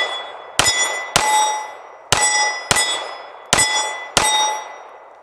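Canik TP9 Elite Subcompact 9mm pistol fired six times, in three quick pairs. Each shot is followed by the clang of steel plate targets being hit, which rings on and dies away.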